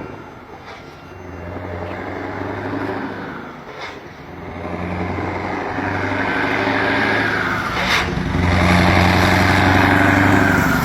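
Scania V8 diesel truck engine running, dipping quieter near the start and swelling louder from about four seconds in.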